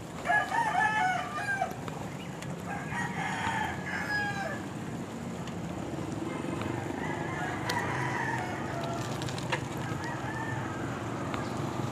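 A rooster crowing twice in the first few seconds, each crow a wavering call about a second and a half long, over a steady low hum of road noise.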